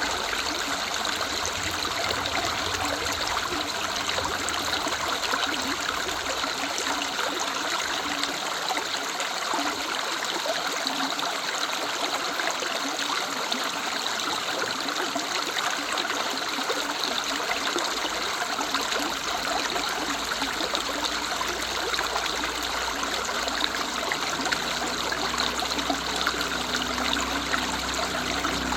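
Woodland river running steadily, a constant rush and trickle of water with no pauses. A low rumble comes in over the second half.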